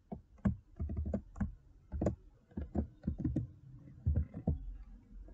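Typing on a computer keyboard: a run of irregular keystroke clicks, some in quick bursts, with short pauses between them.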